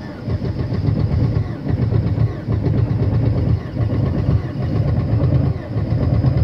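Opel car engine running at a raised cold-start idle of about 1500 rpm in deep frost, just after starting. Its note swells and dips about once a second.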